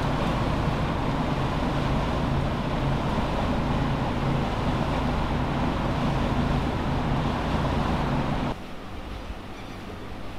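Steady engine drone and rushing wind and water on a ferry's deck while it cruises; about eight and a half seconds in the sound cuts off to a much quieter scene.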